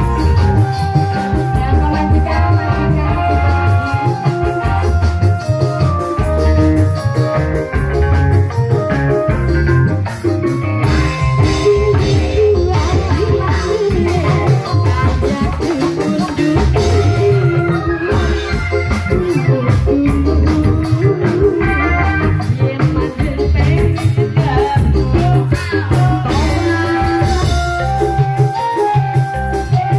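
Live Indramayu reog music in a dangdut style: a woman sings into a microphone over an electronic organ and drums keeping a steady beat.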